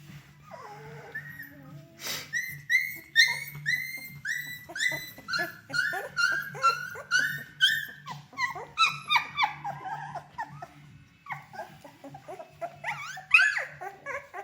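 Three-week-old Bernedoodle puppies whining: a rapid run of short, high squeals, two or three a second, starting about two seconds in, with another burst near the end.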